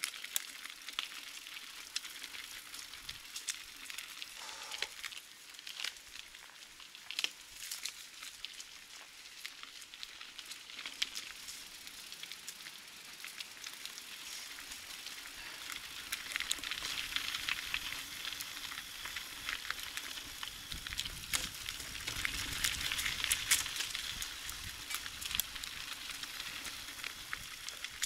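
Mountain bike tyres rolling along a forest road: a steady hiss with many small crackles and clicks, growing louder about halfway through.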